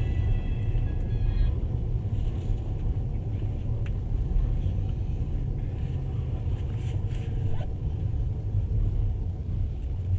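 Passenger train carriage rumbling steadily at low speed, heard from inside the carriage, with a few faint clicks. A high whine of several steady tones cuts off about a second and a half in.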